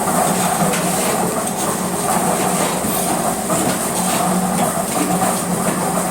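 Concrete block-making machinery running: a steady mechanical hum with a constant rattle of small knocks.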